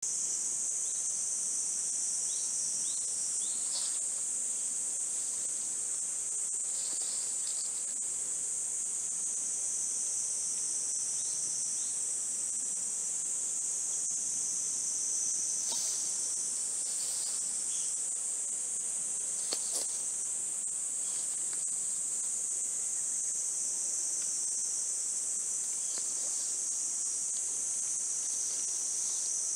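Steady high-pitched chorus of insects such as crickets or cicadas, with a few faint short chirps over it and a light click about twenty seconds in.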